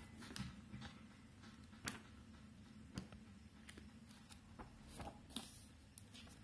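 Faint rustling of paperback book pages turned by hand, with a few short, sharp page flicks.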